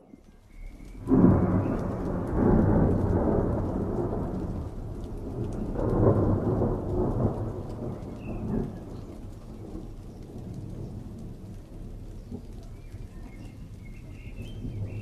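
Thunder rumbling: a clap starts suddenly about a second in, rolls on, swells again around six seconds, and dies away.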